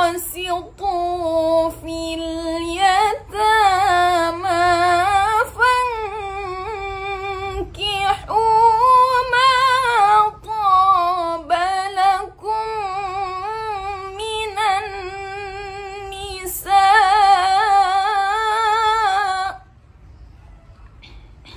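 A solo woman's voice reciting the Qur'an in melodic tilawah style, drawing out long held notes with wavering ornaments and brief pauses for breath. The recitation stops near the end.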